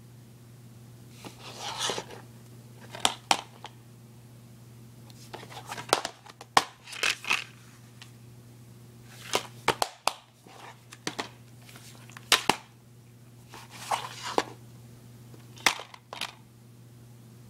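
Plastic DVD case being handled: opened and closed, turned over and moved on a wooden floor, giving a series of short clicks and brief rustles. A steady low hum runs underneath.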